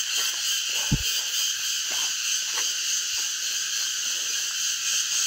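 A dense, steady, high-pitched chorus of forest insects, with a single low thump about a second in.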